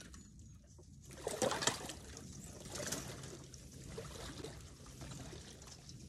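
A person wading into shallow flood water: splashing and sloshing as the legs push through the water, loudest about a second and a half in, then softer sloshing.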